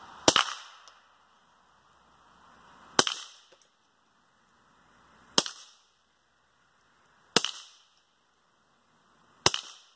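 Five suppressed shots from a .22 LR Ruger Mark III pistol fitted with a homemade stainless monocore suppressor, fired one at a time about two seconds apart. Each is a sharp crack with a short ringing tail.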